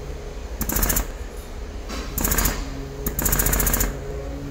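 Three bursts of rapid metallic hammering on a car's rear quarter panel as it is pulled out with welded-on wire loops and a multi-hook dent puller. A steady low hum runs underneath.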